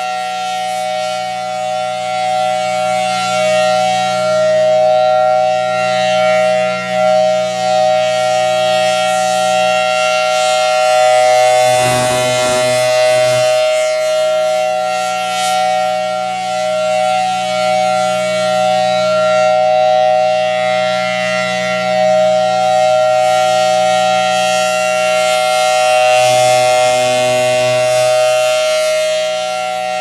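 Federal Signal Thunderbolt 1000T outdoor warning siren sounding its steady alert: a loud, sustained two-tone chord that neither rises nor falls in pitch, swelling and fading slowly as the rotating horn sweeps past. A brief low rumble comes through about twelve seconds in.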